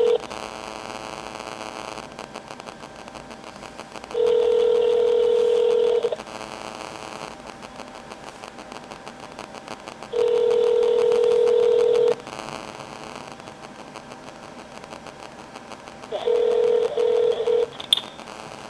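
Telephone ringing tone heard through a mobile phone's loudspeaker: a steady tone about two seconds long, repeating every six seconds or so while the call waits to be answered, with faint line hiss between. Near the end the last ring breaks up into short pieces and stops.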